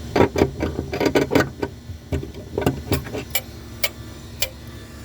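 A quick run of knocks and clicks, followed by single sharp clicks spaced about half a second apart, from the crossing signal equipment being worked.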